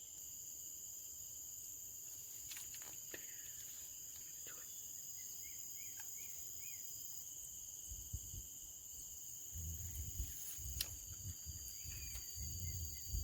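Steady, high-pitched insect chorus of crickets or cicadas, with a few short bird chirps midway. From about eight seconds in, a low, uneven rumbling joins it.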